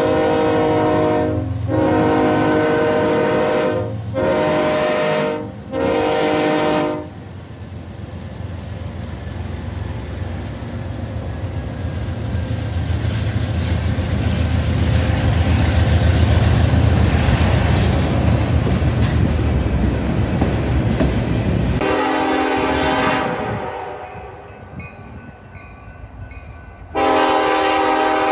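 Diesel freight locomotive's multi-note air horn sounding four blasts as BNSF 6715 passes close by, followed by the rumble and rolling clatter of the freight cars going past, building and then fading. After a cut, a short horn blast sounds, and near the end an approaching locomotive starts a long horn blast.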